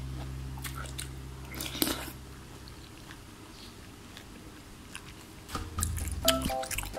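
Chewing and biting of vegetable noodle soup: wet mouth sounds with a scattering of short clicks. Background music fades out about two seconds in and comes back near the end.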